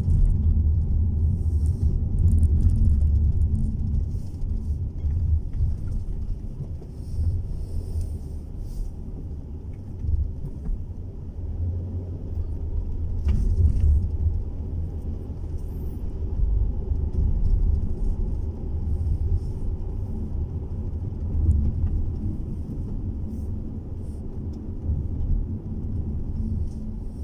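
Low rumble of a car's engine and tyres heard from inside the cabin while driving, swelling and easing with the traffic.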